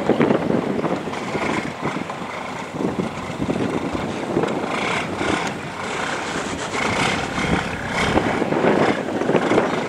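Fishing boat's engine running steadily.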